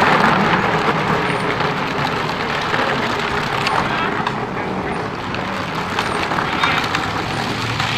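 12-volt Power Wheels ride-on quad's electric motor and gearbox running while it drives, a steady whir with its plastic wheels rolling and scattered small clicks.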